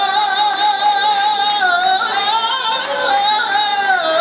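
A man's soul vocal sung live through a microphone and PA, holding long high notes with a wide, wavering vibrato; the pitch dips and rises again near the end.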